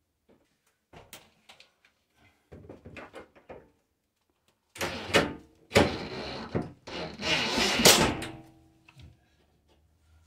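Light clicks and rattles of a small plastic part being handled against a metal rail, then a cordless driver running a screw into the aluminium top rail of a sliding shower door: a short burst, then a longer run of about three seconds, fastening a plastic doorstop.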